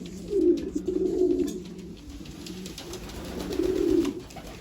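Domestic pigeons cooing: a low rolling coo during the first second and a half, and another about three and a half seconds in.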